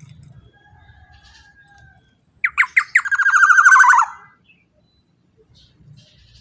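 Black-naped oriole (kepodang) calling: a faint thin whistle, then a quick run of short notes, then one loud drawn-out call lasting about a second that drops in pitch as it ends.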